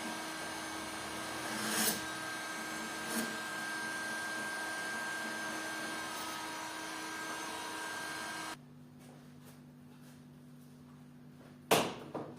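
A small electric motor runs with a steady whirr, with a couple of light knocks. It cuts off abruptly about two-thirds of the way in, leaving a faint low hum. A single sharp knock comes near the end.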